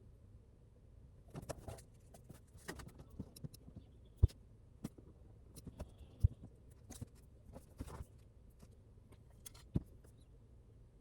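Irregular handling noises: scattered clicks and rustles, with three sharp knocks a couple of seconds apart.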